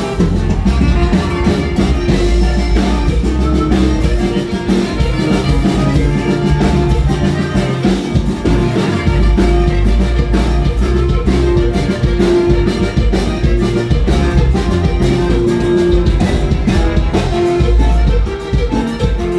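Norteño band playing a huapango live, with a steady beat and bass.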